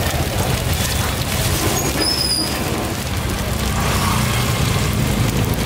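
Street-market ambience: a vehicle engine running steadily under a constant hiss, with a brief high squeak about two seconds in.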